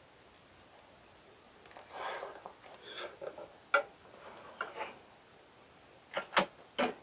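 Drafting tools being handled on a drawing board: a short rub of a ruler sliding on paper, then light knocks and clicks as the rulers are picked up and set down, with three sharp clicks near the end.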